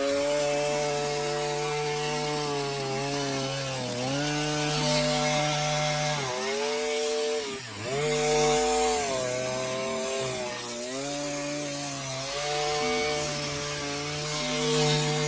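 Small two-stroke engine of a 42.7cc gas multi-tool running its hedge trimmer attachment at high revs while trimming a hedge. The pitch sags briefly several times, most deeply a little past halfway, as the throttle eases or the blades take load.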